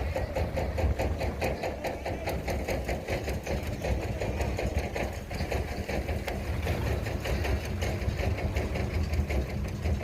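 Engine running steadily with a fast, even mechanical clatter.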